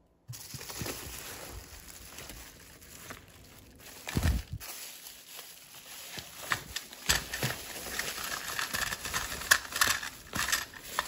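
Bubble wrap and plastic packaging crinkling and rustling as parts are unwrapped by hand, with many sharp crackles. There is a dull thump about four seconds in.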